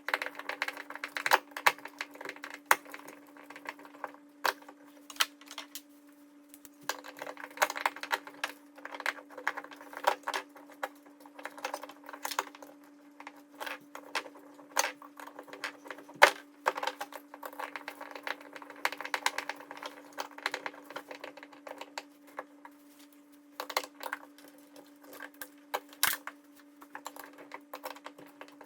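Sped-up hand work putting a wall anchor in: rapid, irregular clicks, taps and knocks over a steady hum.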